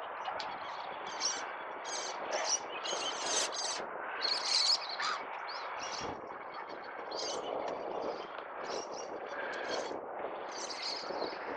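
Small birds chirping and calling over and over, short high calls coming every half second or so, over a faint steady outdoor murmur.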